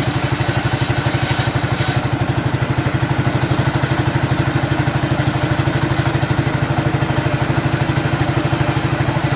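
Engine of a sawmill running steadily at an even speed, with a fast regular pulse and no sound of the blade cutting wood.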